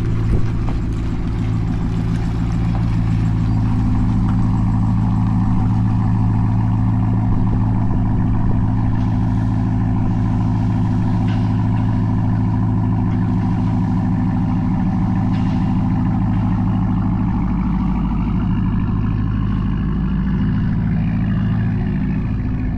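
Ram 1500 TRX's supercharged 6.2-litre V8 running steadily at a constant low speed, its pitch wavering slightly late on.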